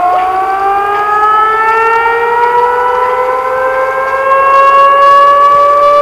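Civil defence warning siren wailing, its pitch rising slowly and levelling off near the end. It is sounding in a scheduled test of the regional warning system.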